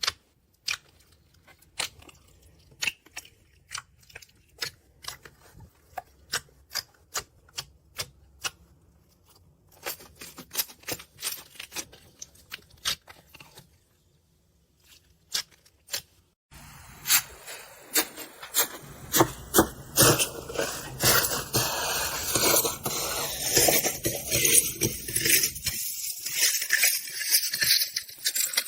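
Slime being handled and pressed. First comes a string of sharp pops, two or three a second. After a brief pause, a dense crackling and scraping runs on to the end.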